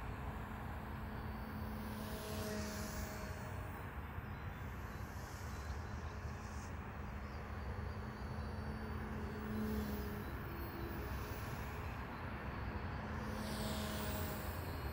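Small electric RC helicopter flying at a distance. A steady rotor and motor hum swells, with hissing swooshes, about two seconds in and again near the end as it passes, over steady background noise.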